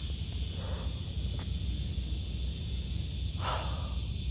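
Steady high-pitched insect chorus, with a low rumble of wind on the microphone underneath.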